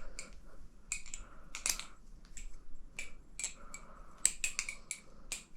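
Hazetac double-edge balisong (butterfly knife) being opened and handled: an irregular run of sharp metal clicks and clacks from its handles and blade swinging on the pivots, with a few brief rustles between them.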